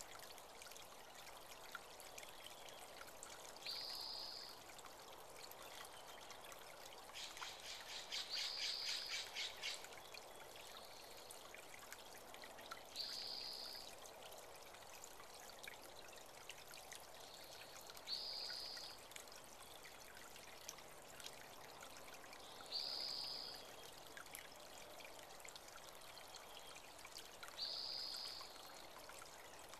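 Steady trickling of a small spring-fed creek, with a bird repeating a short high call about every five seconds. A rapid pulsing trill of about two seconds comes in around a quarter of the way through.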